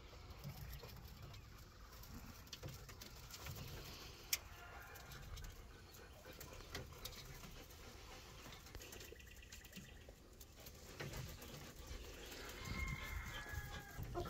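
Faint chirping and calls of caged Coturnix quail and chicks, with scattered light taps of the birds moving and pecking and one sharper tap about four seconds in; the calls grow busier near the end.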